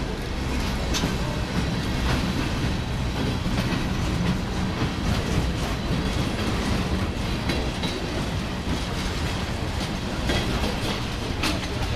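Freight train cars, empty bulkhead flatcars and covered hoppers, rolling past close by: a steady rumble of the wheels on the rails, with a few sharp clicks.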